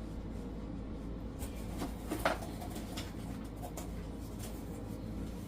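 Faint rustling and a few light clicks of packaging and small sewing notions being handled while a parcel is unpacked, over a steady low hum; the sharpest click comes a little past two seconds in.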